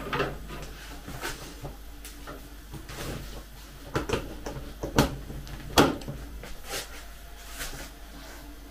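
A string of separate plastic clicks and knocks as an appliance's electric plug is pushed into a multi-socket power strip and handled, the two sharpest knocks about five and six seconds in, over a low steady hum.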